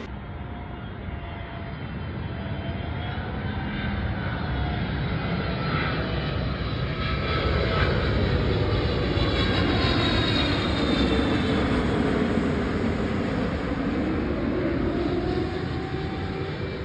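Twin-engine jet airliner on final approach passing low overhead: the jet engine noise swells to its loudest about halfway through and then fades, with whining tones that slide slowly in pitch.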